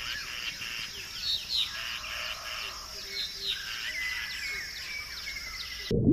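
Forest ambience: several birds chirping with short falling calls and one longer whistled note, over a softly pulsing hiss. Near the end it cuts suddenly to a loud, low rushing noise of water.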